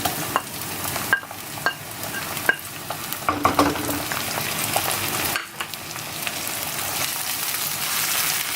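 Onions with ginger and garlic sizzling in hot oil in a pan, stirred with a utensil that clicks and scrapes against the pan.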